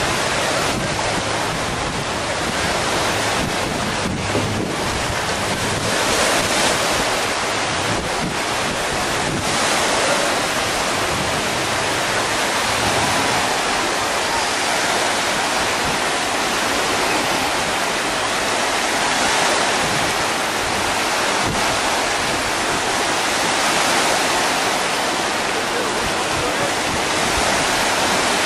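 Steady rushing of wind on the microphone over surf washing in shallow sea water.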